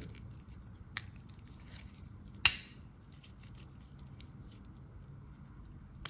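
Victorinox 111 mm Swiss Army knife being handled: a light click about a second in, then a louder, sharp snap about two and a half seconds in, with a few faint ticks, as of its tools clicking open or shut.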